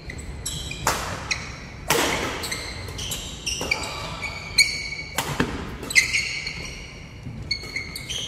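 Badminton doubles rally: several sharp racket strikes on the shuttlecock at uneven intervals, the loudest about two and six seconds in, echoing in a large hall. Between the strikes come many short, high squeaks of court shoes on the wooden floor.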